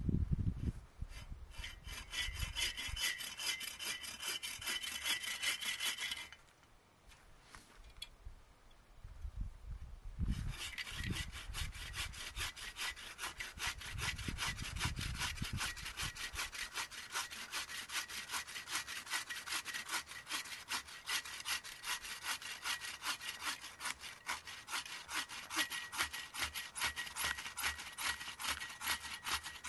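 A hand saw cutting through the trunk of a dead tree in rapid back-and-forth strokes. The sawing stops for about four seconds a quarter of the way in, then starts again and runs on steadily.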